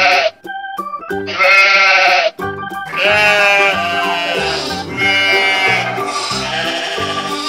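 Sheep bleating, several loud quavering calls one after another, over light background music.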